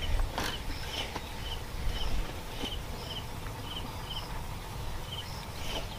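Outdoor countryside ambience: a short high chirp repeating about twice a second, pausing briefly near the end, over a low wind-like rumble, with a couple of faint knocks.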